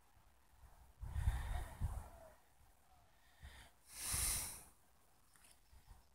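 A person breathing out close to the microphone, twice: a short rough exhale about a second in and a longer, smoother one that swells and fades around four seconds in.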